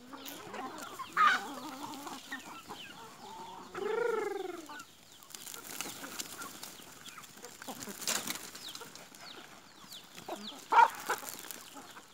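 A flock of free-range chickens clucking and calling, with loud squawks about a second in and near the end and one longer call that rises and falls about four seconds in. Thin high chirps of chicks peeping run through the middle.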